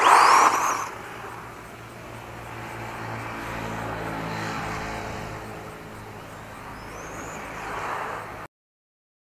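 1/10 HSP Brontosaurus RC monster truck with a Racerstar 3650 3100KV brushless motor pulling away at speed: a loud burst with a high rising motor whine at the start, then running farther off, with another rising whine and swell near the end. The sound cuts off suddenly shortly before the end.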